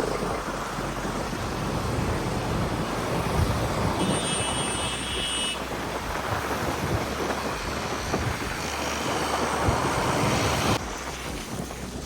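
Wind buffeting on the microphone over vehicle and road noise while riding along a road, a steady rumble that drops suddenly near the end.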